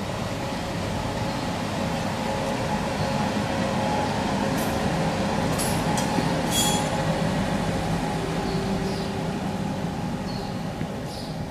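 Serbian Railways class 441 electric locomotive running light past: a steady electric hum over the rumble of its wheels on the rails. It grows louder to a peak about six seconds in, where a few brief high wheel squeals come through, then eases off.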